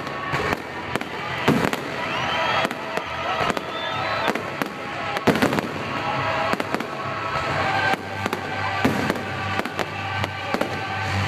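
Fireworks display: irregular sharp bangs of bursting aerial shells amid continuous crackling, with a few rising whistles.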